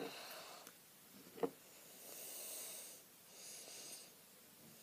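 Faint breathing close to the microphone: two slow, soft hissy breaths, with a single light knock about a second and a half in.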